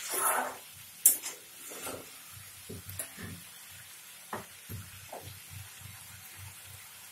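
Sliced pointed gourd and potato sizzling faintly in oil in a pan while a spatula stirs them, scraping the pan and knocking against it now and then, with the sharpest knocks near the start and about a second in.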